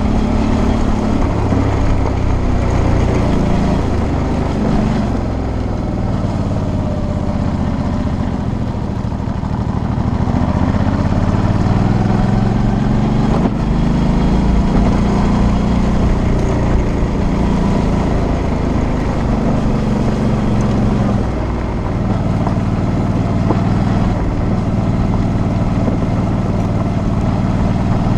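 Suzuki V-Strom 650's V-twin engine running on a gravel track, its pitch rising and falling as the throttle opens and closes, easing off briefly a few times. A constant rush of wind and tyre noise runs underneath.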